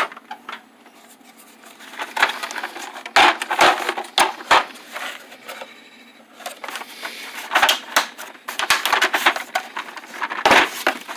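Metal tool box drawers sliding and the tools inside clattering and rattling, in two bursts of quick clicks and knocks separated by a quieter pause.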